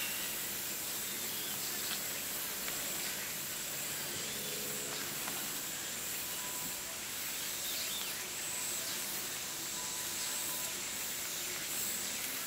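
Steady outdoor background hiss with a faint, steady high-pitched tone over it and no distinct event.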